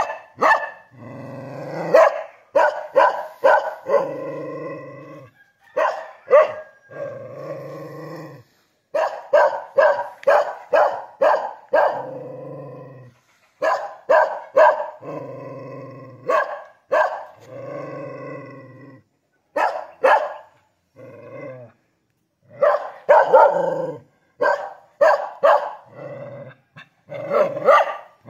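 Kintamani dog barking in quick runs of sharp barks, with longer drawn-out calls between the runs.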